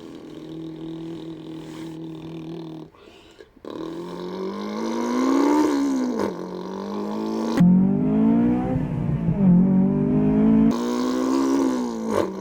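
A boy imitating a Honda S2000's engine with his voice: a steady idle hum, then a short break, then repeated revs that climb in pitch and fall back sharply, like upshifts through the gears.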